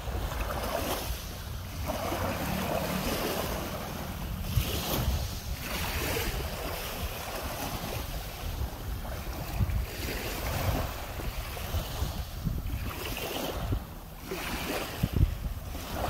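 Small waves washing up and draining back over a coarse sand and gravel shore, a hiss that swells and fades every few seconds, with wind buffeting the microphone.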